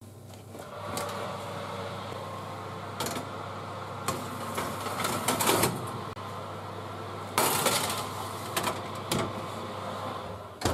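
Metal baking trays slid onto the wire racks of an open oven, knocking and scraping several times, with the loudest scrape about seven and a half seconds in, over a steady hum.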